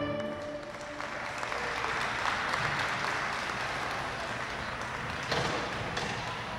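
Applause from a small audience, swelling over the first couple of seconds and then slowly thinning out, while the last notes of the violin music ring away at the start.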